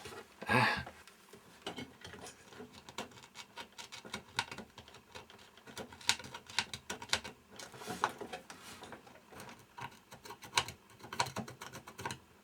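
A small hand tool scratching the solder mask off a copper trace on a TV circuit board, in quick irregular scrapes and ticks, with one louder, longer scrape about half a second in.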